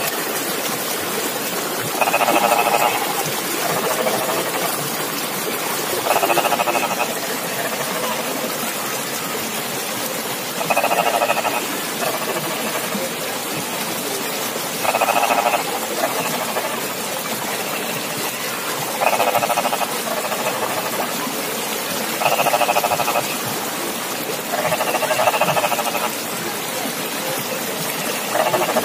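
A frog calling over and over from the flooded rice paddy, each pulsing call lasting about a second and coming every three to four seconds, over a steady hiss.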